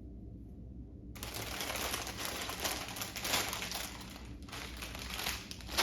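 Plastic Lego parts bag crinkling as it is handled and pulled open, a dense crackle that starts about a second in and runs on with small sharp peaks.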